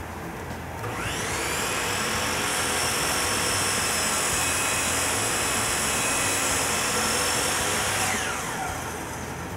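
JET sliding compound miter saw's motor whining up to speed about a second in, running steadily while the blade is lowered through a wooden board, then winding down with a falling whine near the end. A steady hum of the shop's dust collection runs underneath.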